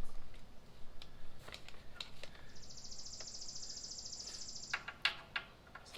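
Scattered light clicks and knocks of parts and papers being handled. Midway through, a high, finely pulsed buzzing trill lasts about two seconds.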